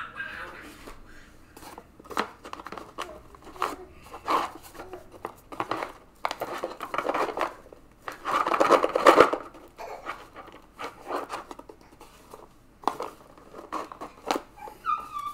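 Plastic card sleeves and rigid plastic top loaders being handled: crinkling, clicks and taps, with a longer scraping slide about eight seconds in as a sleeved trading card is pushed into a top loader.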